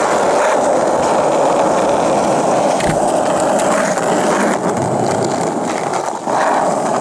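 Freestyle scooter's small hard wheels rolling steadily over rough asphalt, a continuous gritty rolling rumble, with a single light knock about three seconds in.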